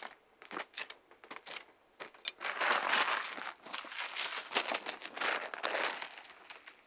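Crinkling and rustling of something being handled: a few scattered crackles, then a denser stretch of crinkling from about two seconds in that thins out near the end.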